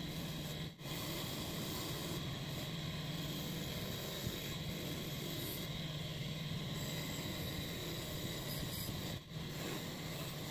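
Steady hum and hiss of an electric workshop machine running, dropping out briefly twice.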